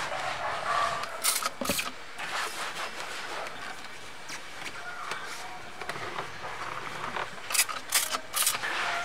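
Microfiber cloth rubbing over plastic car interior trim, with short hissing squirts from a trigger spray bottle of interior protectant: two about a second in and three close together near the end.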